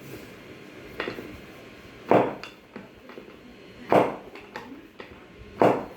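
Four sharp knocks during a chiropractic ankle treatment, about one to two seconds apart, the last three much louder than the first.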